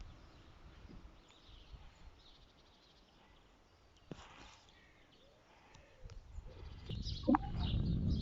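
Outdoor ambience with faint bird chirps and no siren sounding; from about six seconds in, a low rumble builds and stays to the end.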